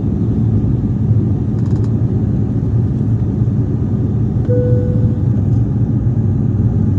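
Steady, loud rumble of a passenger aircraft's engines and airflow, heard from inside the cabin in flight. A brief single clear tone, like a cabin chime, sounds about four and a half seconds in.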